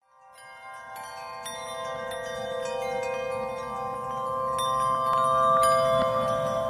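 Chimes ringing as a soundtrack that fades in from silence: bell-like notes struck about every half second over held, ringing tones.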